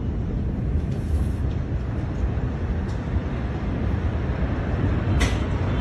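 Deep, steady rumble in the aftermath of a huge explosion, with one sharp crack about five seconds in.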